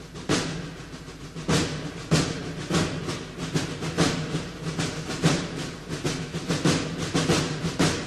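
Background music carried by drum strikes over a steady low bed; the strikes come faster in the second half.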